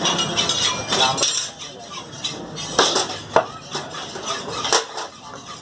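Metal clanking and clinking of a large steel bowl being handled, with a few separate sharp strikes that ring briefly.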